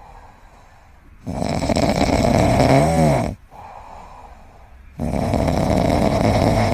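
Sleeping kitten snoring in slow, even breaths. Two long loud snores start about a second in and about five seconds in, with quieter breaths between them. The first loud snore ends in a wavering, buzzy tone.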